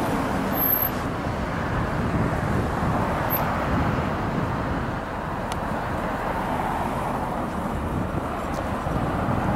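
Outdoor street ambience: steady traffic noise with a strong low rumble.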